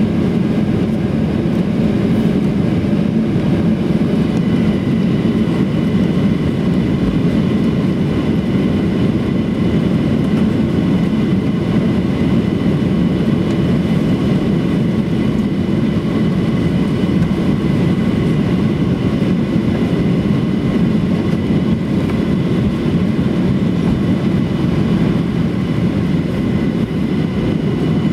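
Cabin noise inside a Boeing 737-800 taxiing on its CFM56 engines: a steady low rumble of engines and rolling wheels. Faint steady high engine tones join about four seconds in.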